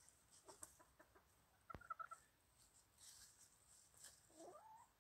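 Bantam chickens clucking softly while foraging: a quick run of short clucks about two seconds in and a single rising call near the end, over faint rustling and ticking in dry leaves.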